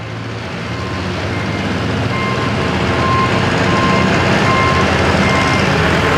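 Antique tractor engine running hard under load while pulling the sled, getting steadily louder as it comes closer. Over it, from about two seconds in, a short electronic beep repeats at a steady pace, roughly once every three-quarters of a second.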